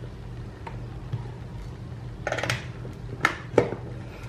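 Power cord of a mini waffle maker being handled and its plug pushed into a wall socket: a few sharp clicks and knocks about two and a half to three and a half seconds in, over a low steady hum.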